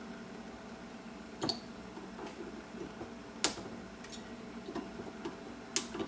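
Side cutters snipping the wire leads of replacement capacitors on a circuit board: three sharp snaps about two seconds apart, the last two the loudest, with a few fainter clicks between.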